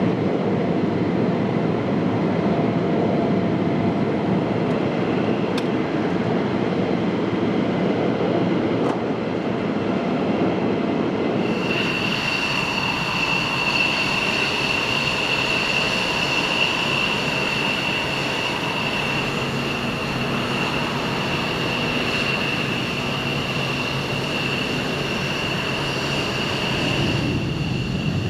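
Jet aircraft engine noise: a dense, steady rumble, then, about eleven seconds in, an abrupt change to an engine running with a steady high-pitched turbine whine over a lighter rumble.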